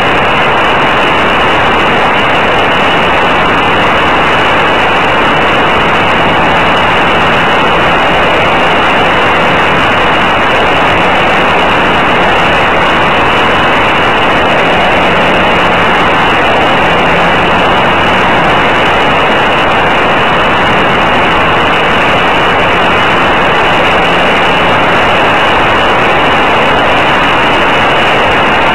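Senior Telemaster model airplane's engine and propeller running steadily in flight, mixed with wind rushing over a camera on board; loud and unbroken.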